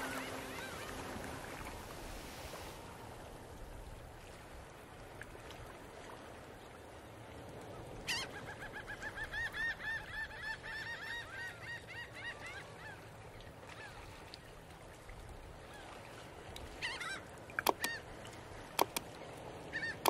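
Music fading out, then a rapid series of high, arching animal calls, about five a second for some five seconds, followed by a few sharp clicks near the end.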